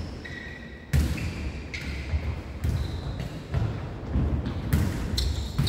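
A jokgu ball being kicked and bouncing on a wooden gym floor, with sharp hits about once a second that echo in the large hall, and short high squeaks of sports shoes on the floor.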